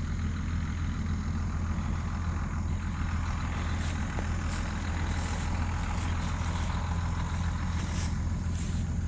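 A vehicle engine idling steadily with a low, even hum, and a few brief soft rustles over it.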